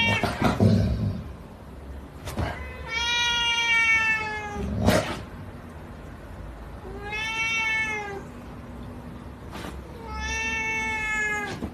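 Domestic cat giving three long, drawn-out meows, each about a second and a half and sagging slightly in pitch at the end, with a few short knocks in between.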